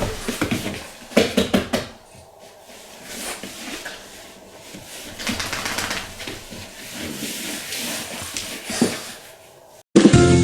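A quick run of sharp clicks and taps, then quieter scattered sounds; upbeat music starts right at the end.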